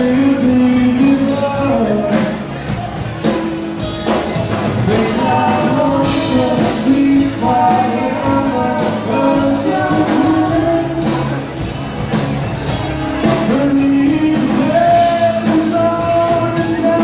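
Band music: a song with a singing voice carrying the melody over a steady drum beat.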